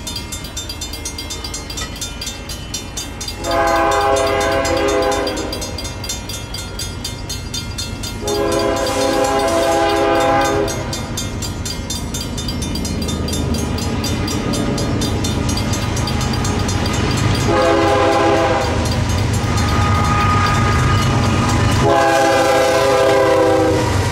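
Lead diesel locomotive of an approaching BNSF intermodal freight train sounding its multi-chime air horn in the grade-crossing pattern: long, long, short, long. The low rumble of the locomotives' engines grows steadily louder as the train nears.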